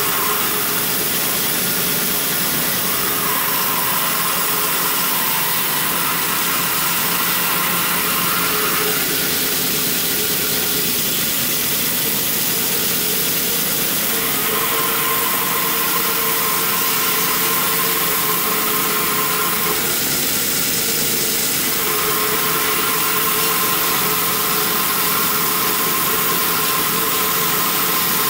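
Band saw running steadily as it cuts through a log. Its tone changes for a few seconds twice, about nine seconds in and again around twenty seconds.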